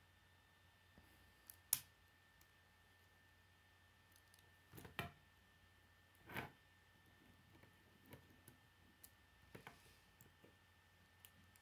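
Plastic K'nex rods and connectors clicking and snapping as they are handled and fitted together: four louder clicks spread through, the sharpest about two seconds in, with quieter ticks between.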